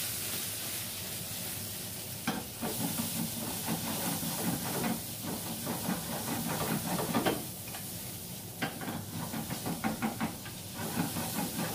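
Shrimp and garlic sizzling in hot olive oil in a frying pan, with a steady hiss. A wooden spatula scrapes and knocks against the pan at irregular moments as they are stirred.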